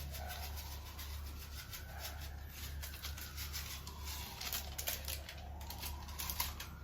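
Papaya simmering in coconut milk in a pot, with many small irregular bubbling pops over a low steady hum.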